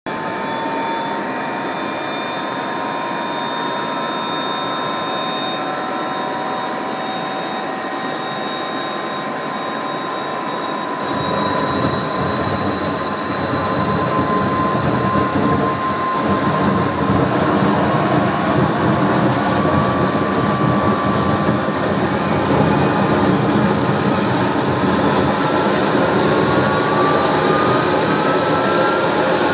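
Avro RJ's Honeywell LF507 turbofan starting: a steady whine, then a low rumble sets in about eleven seconds in, and the whine climbs slowly in pitch toward the end as the engine spools up. The start comes with a tailpipe fire that goes out by itself, with no abnormal engine indications.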